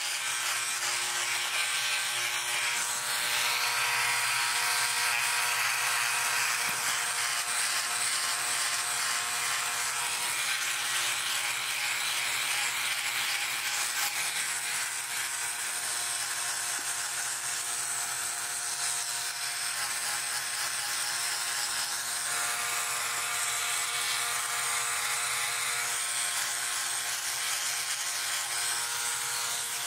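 Philips OneBlade hybrid electric trimmer-shaver running with a steady buzz while it is drawn through shaving foam, wet-shaving stubble on the neck and cheek.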